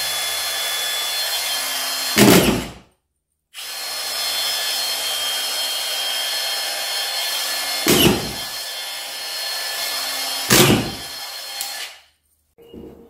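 Milwaukee M18 Fuel brushless drywall screw gun running free with its trigger locked on for continuous mode, a steady high whirring with a few short louder clunks, about two, eight and ten and a half seconds in. It cuts out for a moment about three seconds in and stops near the end.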